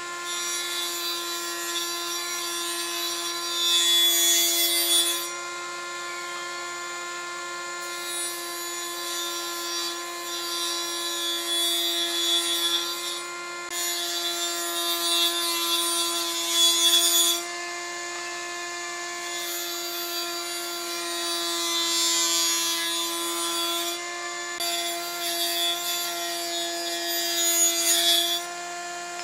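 Small table saw running with a steady motor whine, ripping pine boards. The louder cutting noise comes and goes in about five passes, each a few seconds long, and the saw runs free between them.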